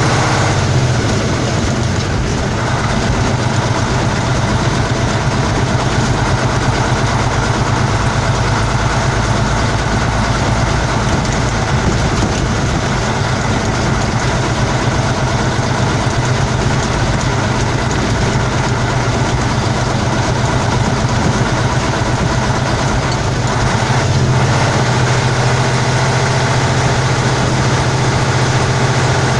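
Praga V3S truck's air-cooled six-cylinder diesel engine running steadily while the truck drives, heard from inside the cab with a constant low hum.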